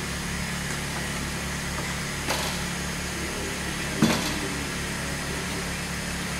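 Steady low mechanical hum, with two short sharp clicks about two and four seconds in, like plastic air filter housing parts being handled.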